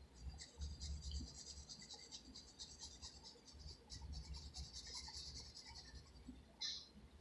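Faint scratching of a pen on paper in quick, repeated hatching strokes, with one louder stroke near the end.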